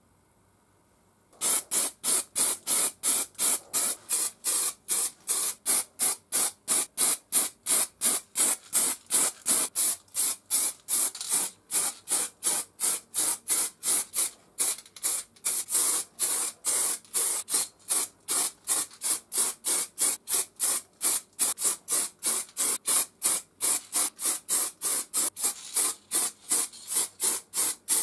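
Aerosol can of two-component (2K) anthracite paint spraying in short hissing bursts, about three a second, starting about a second and a half in.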